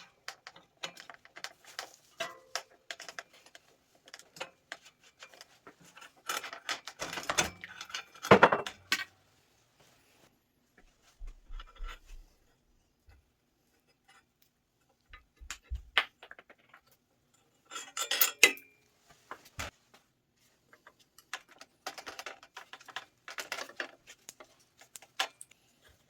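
Metal tools and bicycle parts clinking and clanking during hands-on workshop work: irregular clicks and knocks in clusters with short pauses between, loudest about eight seconds in.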